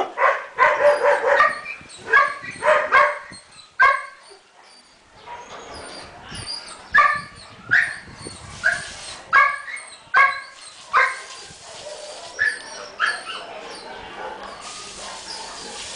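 Dog barking repeatedly: a quick run of barks in the first few seconds, a short lull, then single barks about once a second until shortly before the end.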